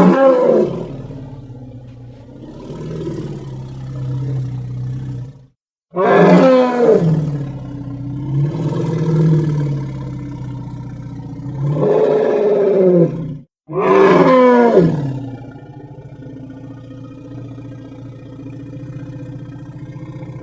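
Animated character's roar sound effect, three times: each roar starts loud and high and falls in pitch, then trails into a lower, drawn-out growl. The roars start near the start, about six seconds in, and about fourteen seconds in, with a short silent gap before the second and third.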